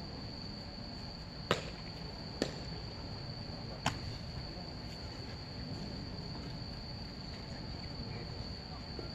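Insects trilling one steady high-pitched note over the low hum of an open ballfield at night. Three sharp knocks cut through it between about one and a half and four seconds in.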